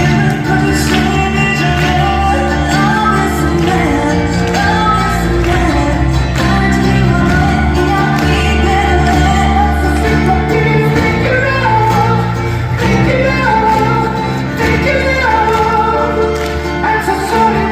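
Music with singing over sustained bass notes.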